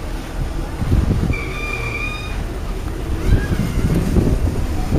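2003 Ford Taurus engine running with a high-pitched whine over a low rumble and wind on the microphone. The whine holds steady for about a second, then comes back shorter and bending in pitch about three seconds in; the owner does not know its cause.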